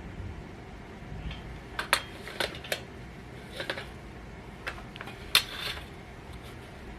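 Hand tools and metal parts clinking and tapping while the distributor is taken out of a Dodge 5.2 L Magnum V8 on an engine stand: a scatter of short, sharp clicks, about seven, the loudest a little past the middle.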